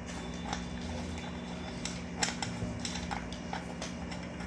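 Light, irregular metal clicks and taps as screws are driven back into a ceiling fan's cover with a screwdriver, over a steady low hum.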